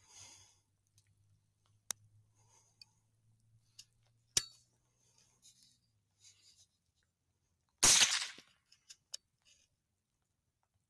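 A single rifle shot about eight seconds in: a sudden loud crack with a short fading tail. Before it come a few sharp clicks and a faint low hum.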